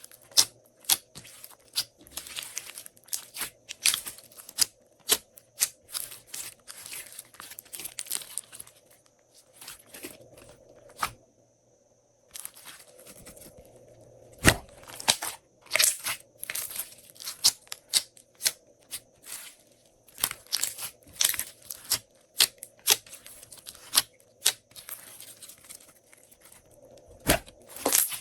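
Glossy slime being worked by hand: a run of sticky clicks, pops and crackles as it is squeezed and stretched, with a short pause a little before halfway.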